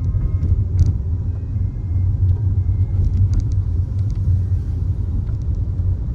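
Steady low rumble of a Peugeot 3008 on the move, with a few faint ticks.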